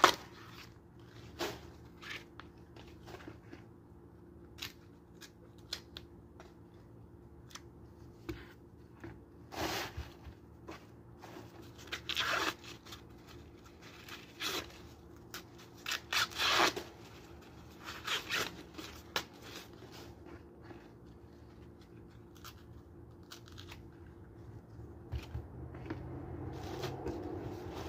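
Fresh corn husks being torn and peeled off ears of corn by hand: scattered short tearing rips and crackles, with some rustling near the end.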